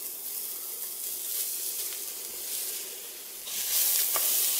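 Diced onions and Leberkäse frying in hot oil in a cast-iron Dutch oven, with a steady sizzle as they go into the pan. The sizzle grows louder about three and a half seconds in, as the food is stirred with a wooden spoon.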